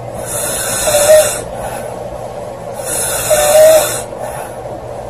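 A woman snoring loudly: two snoring breaths about two and a half seconds apart, each lasting a little over a second and loudest toward its end.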